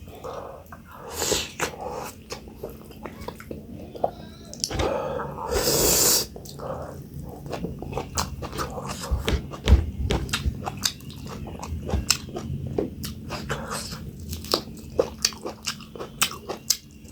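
Close-miked eating: chewing, lip smacks and mouth clicks of a person eating dhindo with sukuti dried meat and pumpkin. There are two longer breathy noises, about a second in and from about five to six seconds in.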